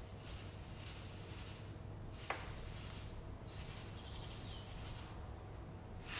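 Granulated sugar pouring from a bag into a glass bowl of melted butter: a soft, high hiss that breaks off twice and stops near the end. There is a single click a little over two seconds in.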